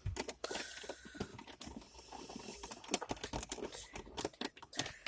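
Irregular small clicks and rustles of a Volvo V70's plastic console trim and new gear-stick gaiter being handled and pushed down into place.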